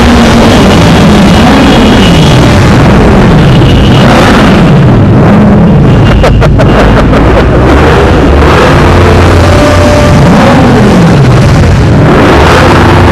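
Rev bomb: several motorcycles revving together in a road tunnel, their engines climbing and falling in pitch over and over and overlapping, very loud. A quick run of sharp cracks comes about six to seven seconds in.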